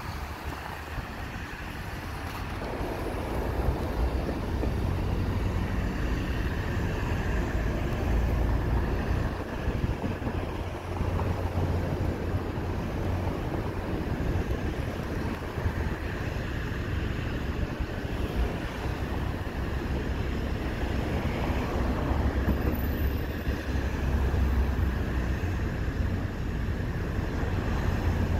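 FS D.245 diesel shunting locomotive's engine running as it shunts a rake of Intercity coaches: a steady low drone that grows louder about two to three seconds in and then holds.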